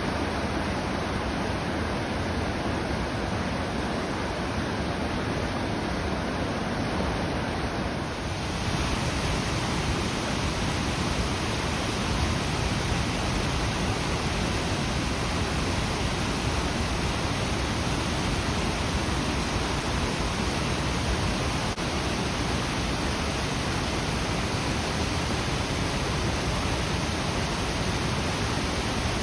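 Waterfall: the steady rush of a large volume of falling water, unbroken throughout, becoming slightly brighter and louder about eight seconds in.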